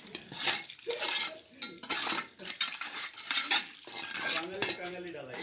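Metal tools scraping and clinking on concrete in a run of repeated rasping strokes while a concrete floor is being cast.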